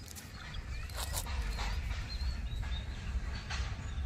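Open-air background with a low wind rumble and small birds chirping, broken by a few short breathy hisses about a second in, again shortly after, and near the end.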